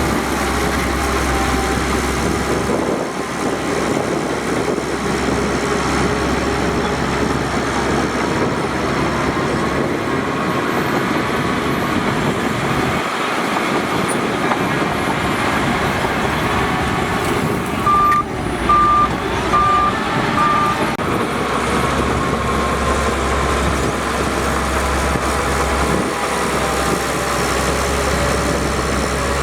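Heavy diesel earthmoving machinery running steadily. Partway through, a reversing alarm gives four short beeps about a second apart.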